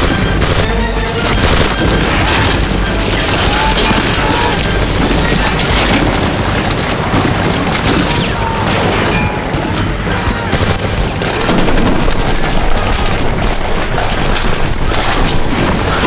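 Continuous volleys of rifle gunfire mixed with the booms of explosions, over background music.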